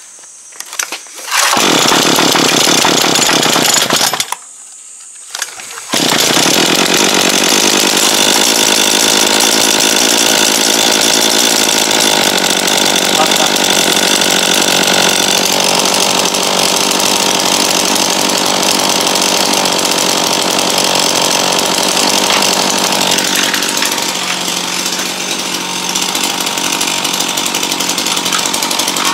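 Backpack brush cutter's small two-stroke engine pull-started from cold with the choke on. It catches about a second in, runs a few seconds and dies, then starts again about six seconds in and keeps running, a little quieter from about 23 seconds on.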